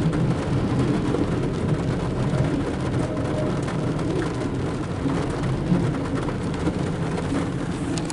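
Loaded autorack freight cars rolling past close by: a steady rumble of steel wheels on rail, heard from inside a vehicle with rain falling on it.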